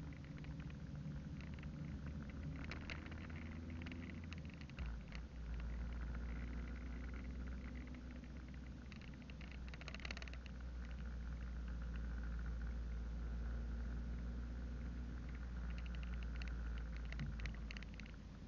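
Car interior driving noise: a steady low engine and road rumble that shifts abruptly about five seconds in, with light ticks and rattles now and then.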